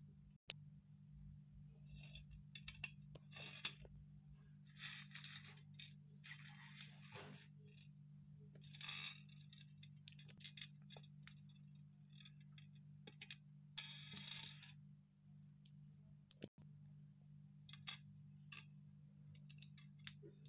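Small plastic toy bricks clicking, rattling and scraping on a hard tabletop as they are pulled apart and pushed around by hand, in short irregular bursts, over a steady low hum.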